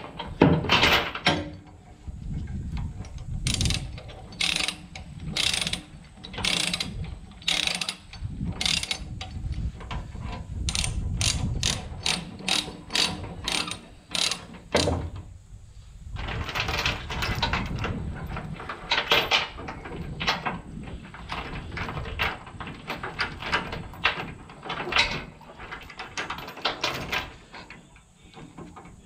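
Ratchet chain binder being cranked by hand: the pawl clicks in quick runs of strokes with short pauses and a longer lull about halfway. The chain is drawing tight to pull a bent bush hog deck back into line.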